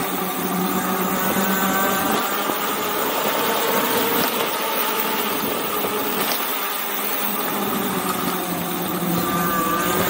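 E-bike's 2000 W 52 V rear hub motor whining steadily under way, with tyre and wind rush; a faint whine climbs in pitch near the end as the bike picks up speed.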